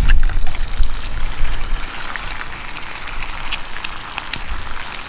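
Bacon sizzling in an iron frying pan over a campfire: a steady frying hiss with many small crackling pops. An egg is broken into the pan at the start, and the sizzle is loudest in the first second and a half.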